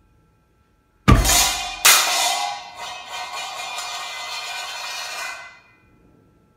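Methane–air mixture exploding inside a tin can: a sudden loud bang about a second in, a second bang under a second later, then metallic clattering and ringing that dies away over about four seconds.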